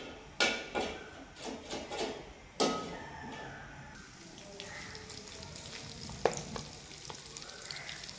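Cooking oil heating in a metal karahi on a gas stove. A slotted metal spoon knocks and scrapes against the pan a few times in the first three seconds, then the hot oil gives a faint, steady sizzle.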